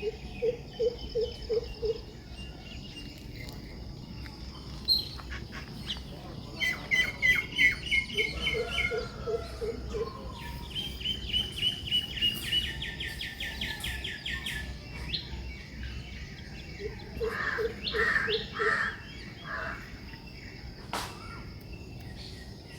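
Birds calling: three runs of about six low, evenly spaced hoots, with bursts of rapid high chirping trills between them.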